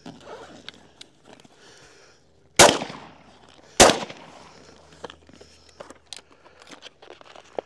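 Two shotgun shots about a second apart, each a sharp loud blast with a short echo, fired at passing doves.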